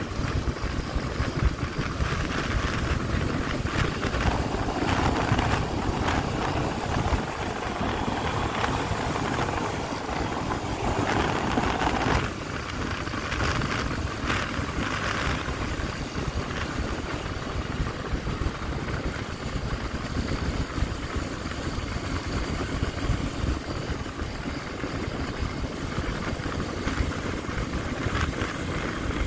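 Yamaha Crypton S motorcycle's small single-cylinder engine running at steady road speed under a heavy rush of wind over the microphone. The wind grows louder for several seconds in the first half.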